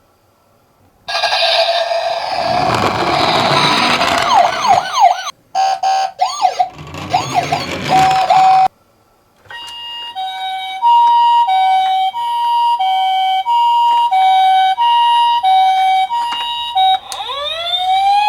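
Toy ambulance minicar's electronic siren playing the Japanese two-tone ambulance pattern, alternating between a high and a low pitch about every half second, with a rising sweep into the high tone near the end. Earlier, from about a second in, several seconds of loud rumbling, rushing noise with wavering whistle-like tones cover it, then it cuts off briefly before the steady two-tone pattern.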